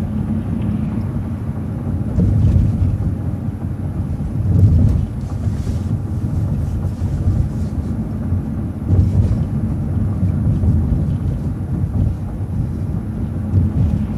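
City transit bus in motion: a steady low engine and road rumble that swells a little a few times.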